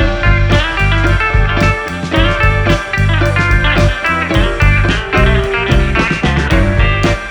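Background music: guitar-led rock with a steady, heavy beat.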